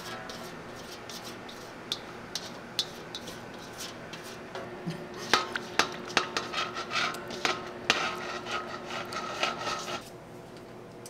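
Kitchen clatter of utensils and pans: scattered light clinks and knocks, turning about halfway into a busy run of clattering and scraping that stops about a second before the end.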